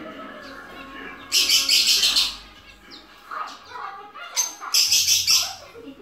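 Small caged finches singing: two loud bursts of rapid, high trilling, each about a second long, with softer chirps in between.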